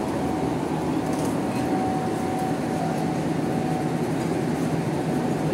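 Diesel bus engine running steadily, a low hum with a thin whine that comes and goes above it.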